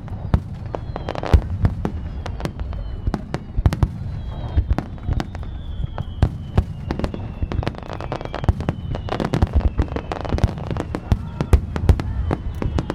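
Large fireworks display in full barrage: a dense run of sharp shell bursts over a continuous low rumble, with faint whistles that slowly fall in pitch.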